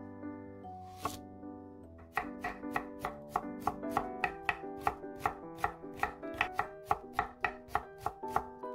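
Chef's knife slicing half an onion on an end-grain wooden cutting board: the blade knocks on the board about three to four times a second, starting about two seconds in. Soft background music plays under it.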